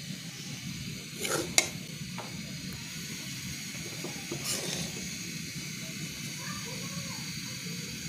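A spatula stirs and scrapes dry breadcrumbs being toasted in a karahi, giving a soft rustling over a steady hiss. A few sharper scrapes come about a second and a half in and again past four seconds.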